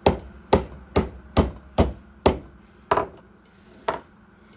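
Hammer tapping a Dremel bit used as a punch to drive a pocket-knife pin through: eight sharp metal taps, about two a second, spacing out toward the end.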